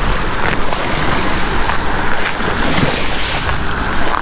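Wind buffeting the microphone over small waves lapping at a sandy shoreline, with brief splashes now and then.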